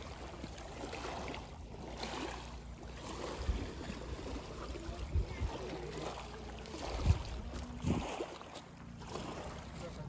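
Small waves lapping on a pebble shore, with wind rumbling on the microphone and a few stronger gusts knocking on it, and faint voices in the background.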